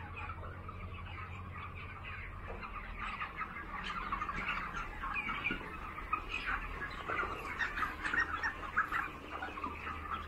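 A large flock of young broiler chickens chirping and clucking, many short calls overlapping continuously, over a faint low steady hum.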